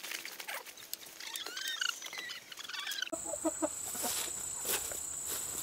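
Cornish Cross meat chickens calling: a few short rising and falling peeps in the middle, then a quick run of lower clucks about three seconds in.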